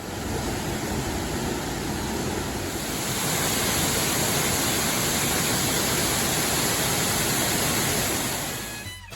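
Waterfall: a steady rush of falling water, growing louder about three seconds in and fading away near the end.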